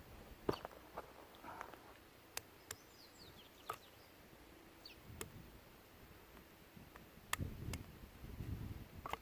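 Faint, scattered sharp cracks and snaps at irregular intervals, with a few short high chirps and a stretch of low rustling near the end.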